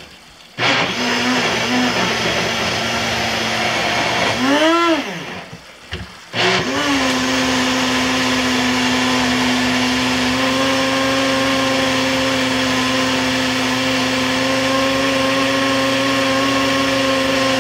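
Small single-serve blender puréeing cooked butternut squash. The motor runs for about four seconds, its pitch swings up and down, and it stops briefly. It then starts again and runs steadily.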